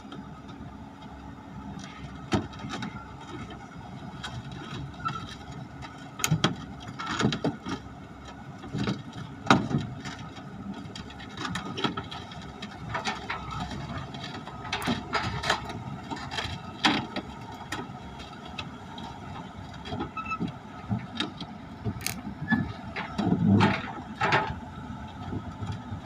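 Excavator running while it is unloaded from a truck: a steady engine drone with many irregular sharp metal clanks and knocks, some with squeals.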